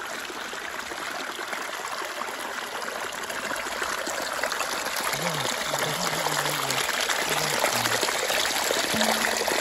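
Small forest stream trickling and splashing over soil and stones, growing steadily louder.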